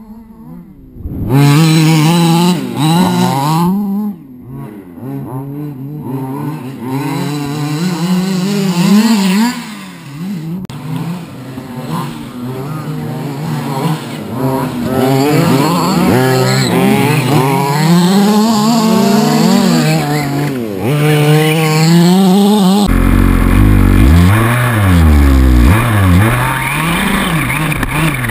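Several 1/5-scale gas RC cars' small two-stroke engines revving up and down as they race, their overlapping whines rising and falling. About 23 seconds in, one engine takes over, louder and deeper, heard close up from on board the car.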